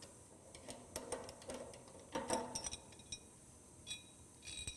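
Light metal clinks, clicks and a brief rattle as a table saw's throat plate is lifted out and handled, with a few sharp clicks near the end.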